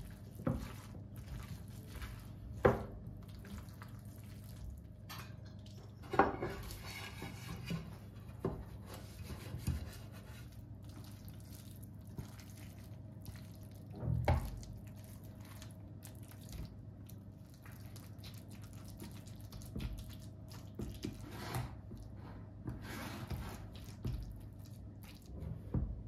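A spatula scraping and knocking in a glass mixing bowl, and wet leek filling being scraped out and dropping into a metal loaf tin: scattered clicks and a few sharp knocks over a faint steady hum.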